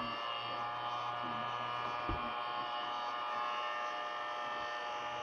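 Electric heat gun running steadily, its fan motor giving a level whine over a low hum while it heats the phone to soften the adhesive. A single short knock about two seconds in.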